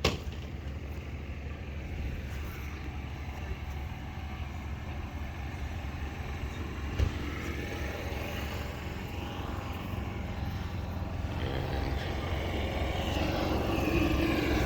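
Antique farm tractor engine running steadily, growing louder toward the end, with one sharp click about seven seconds in.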